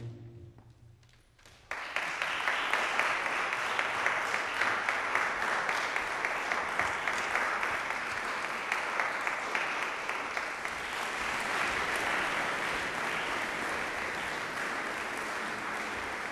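Audience applauding, starting suddenly about two seconds in and going on steadily.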